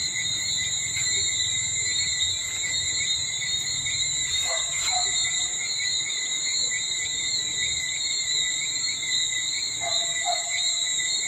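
Steady chorus of insects, a high pulsing trill that runs on without a break. A faint short call sounds twice, about four and a half seconds in and near the end.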